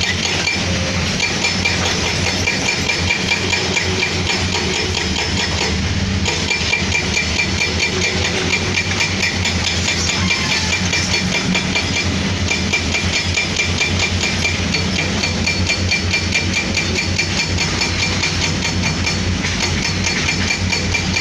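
Heavy diesel engine of a hydraulic excavator running steadily with a fast, even clatter, and a thin high whine that drops out and comes back several times.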